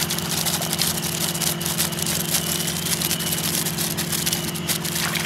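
Steady motor drone with a stack of steady low tones, and over it a dense patter of small taps and splashes from live shrimp flicking in a lifted feeding tray.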